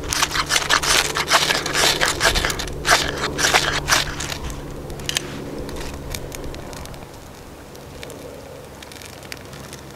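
Knife spine scraped rapidly and repeatedly down a ferrocerium rod, striking sparks onto birch-bark tinder to light a fire. The strokes come thick and fast for about four seconds, then thin out to a few faint scrapes.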